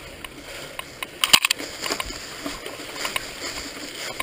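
Mountain bike ridden over a bumpy dirt trail: irregular clattering and knocks over a steady rolling noise, loudest in a short cluster of knocks about a second and a half in.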